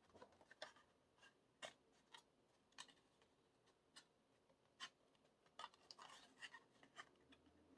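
Faint handling of a cardboard album folder and its inserts: scattered light clicks, taps and paper scrapes, busier near the end.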